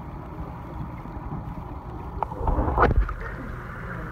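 Water moving in a reef aquarium, heard as a steady low wash through a submerged phone. About two and a half seconds in it swells into a louder rush, with a sharp knock near three seconds.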